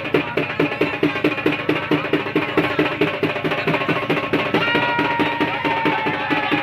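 Music driven by fast, steady drumming, about six strokes a second. About two-thirds of the way in, a long held high note comes in and slowly falls in pitch.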